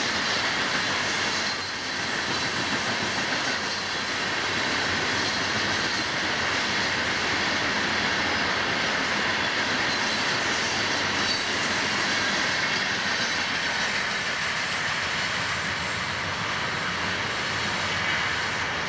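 Freight train of loaded open-top hopper cars rolling past at a steady speed, with a continuous noise of steel wheels on the rails.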